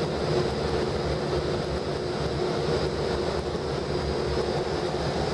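Cabin noise inside a moving airport apron bus: a steady drone of engine and drivetrain with road rumble, and a faint steady high whine over it.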